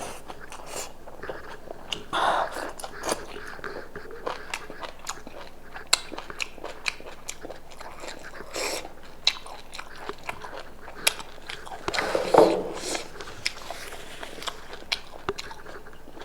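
Close-miked eating: a person chewing goat meat with crunchy raw onion and chilli, with many sharp, wet mouth clicks. There is a louder noisy sound about two seconds in and another about twelve seconds in.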